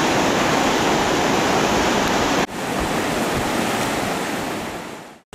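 Steady rushing of flowing river water. It breaks off abruptly about two and a half seconds in, then continues a little quieter and fades out near the end.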